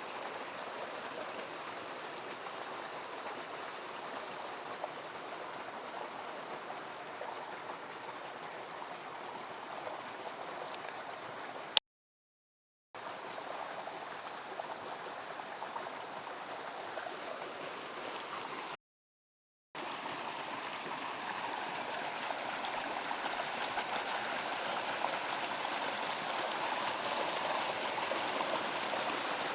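Steady rush of falling water from a waterfall. It is broken twice by about a second of dead silence where the recording cuts, the first preceded by a sharp click.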